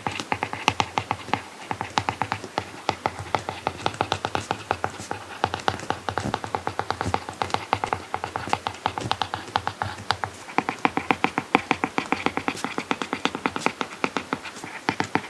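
Apple Pencil tip tapping and scratching across an iPad Pro screen fitted with a paper-like matte protector during handwriting: a quick, uneven run of small clicks, several a second.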